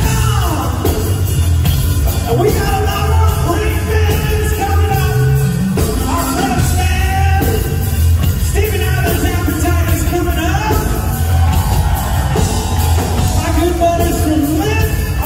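Live rock band playing loudly: a singer's voice over drums and electric guitar.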